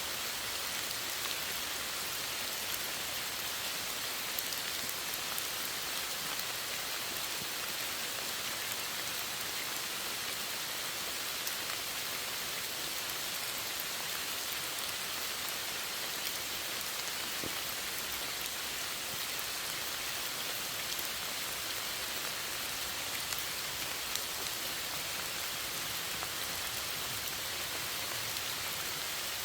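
Steady rain falling, a dense even hiss with scattered drop ticks.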